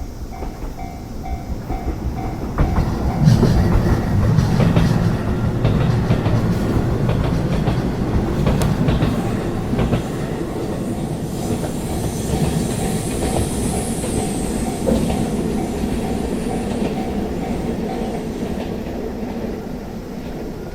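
A railway level-crossing warning bell dings about three times a second while a JR East Ome Line electric train passes over the crossing. The train swells in loudly a few seconds in, with its wheels clacking over the rail joints, then fades, and the bell is heard through it again.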